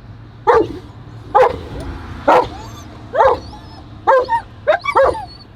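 German Shepherd barking and yipping in short, excited calls about once a second, coming quicker near the end, with high thin whines between them.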